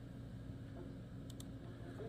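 Faint steady low hum with two light clicks about two-thirds of the way through.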